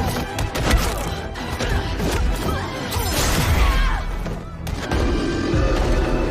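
Action score music over a series of sharp hits and crashes, with a rushing swell about three seconds in.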